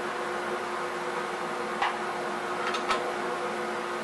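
14-inch Delta bandsaw running with no wood in the blade, a steady motor hum. A few light clicks come about two seconds in and again just before three seconds.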